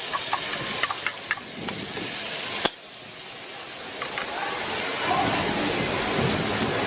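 Green beans and pork sizzling in a hot oiled wok as they are tipped in and stirred with a metal spatula, with light clicks of utensils against the wok in the first couple of seconds and one sharp click midway. The sizzle dips after that click, then builds back up and grows steadier toward the end.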